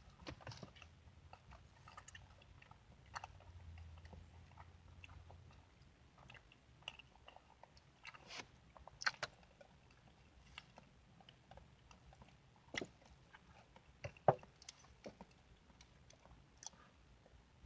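A person chewing and eating a fruit sandwich close to the microphone, mukbang-style: irregular wet mouth clicks and smacks, with a few louder ones about nine, thirteen and fourteen seconds in.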